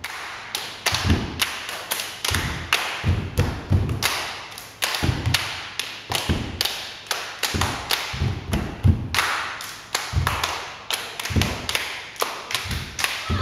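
Fast rhythmic percussion of deep thuds mixed with sharp slaps, about three strikes a second.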